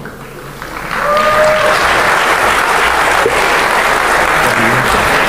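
Large audience applauding, building up about a second in and then holding steady.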